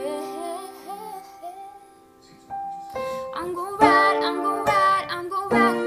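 A woman singing a slow song over an instrumental backing of held chords. The music drops almost to quiet about two seconds in, then her voice comes back louder.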